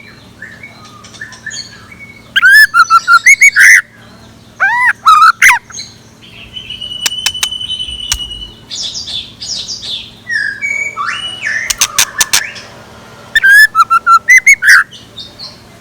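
Captive scarlet minivet decoy bird singing close to the microphone: three loud bursts of rapid, sweeping chirped notes, with softer calls and a thin held whistle between them. A few sharp clicks come about twelve seconds in.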